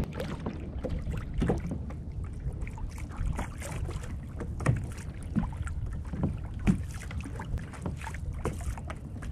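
Water lapping and slapping irregularly against a kayak's hull, over a steady low wind rumble on the microphone.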